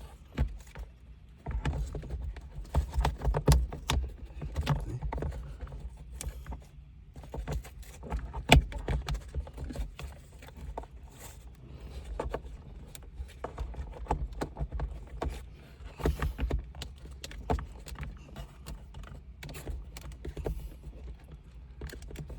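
Irregular clicks, knocks and rustling from a wiring harness and plastic interior trim being handled inside a car as a connector is hooked up.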